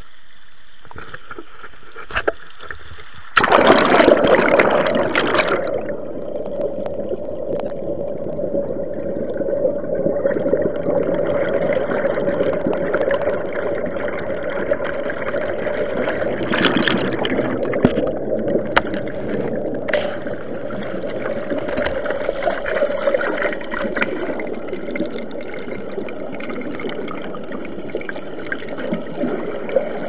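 Waterfall water churning into a stream pool, heard through a submerged camera: a steady, muffled gurgling rush that jumps louder about three seconds in, with a few small knocks.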